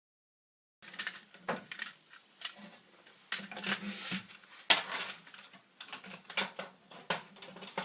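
Small plastic clicks, taps and scrapes as a new door latch and spring are worked into a Hotpoint washing machine's door handle housing. The clicks begin about a second in and come in quick, irregular runs.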